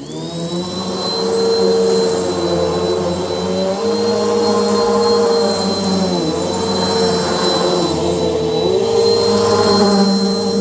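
An electric motor running steadily with a high whine, its pitch dipping briefly twice, about six and eight and a half seconds in.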